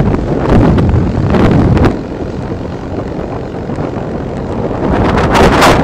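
Wind buffeting the microphone of a camera carried on a moving motorbike, over low noise from the ride. It drops back about two seconds in and swells again near the end.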